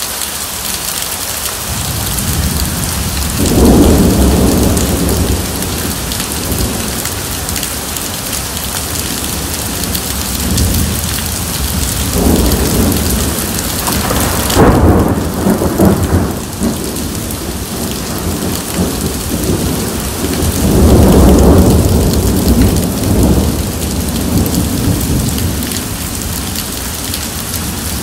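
Heavy rain pouring steadily onto wet ground, with rolling thunder rumbling up three times: about three seconds in, around the middle, and again about three quarters of the way through.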